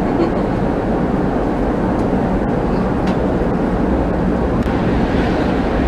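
Penang Hill Railway funicular car running along its track: a steady, even rumble of the car's wheels on the rails, heard from inside the cabin.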